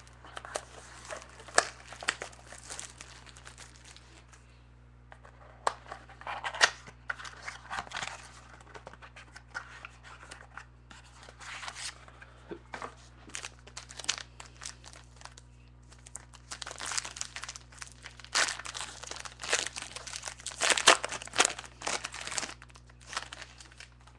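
Packaging on a sealed trading-card mini box being torn open and crinkled, with clicks and rustles of cards being handled, in irregular bursts with a short lull a few seconds in. A faint steady low hum underneath.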